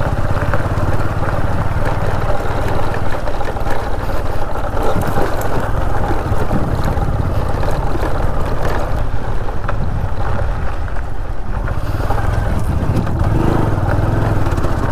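Motorcycle engine running steadily while the bike is ridden, a constant low hum with road noise over it.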